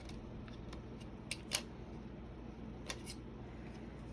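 Faint, sharp plastic clicks, two pairs of them, as a thin blade pries at the Dell Latitude E5470's keyboard bezel to pop its clips loose, over a low steady hum.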